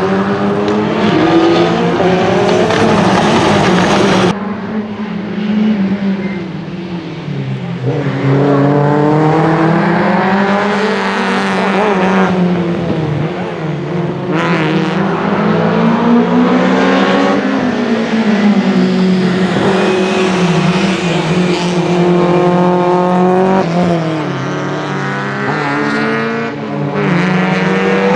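Rally car engine running hard through a stage, its note climbing under acceleration and dropping back at lifts and gear changes again and again. The sound changes abruptly about four seconds in.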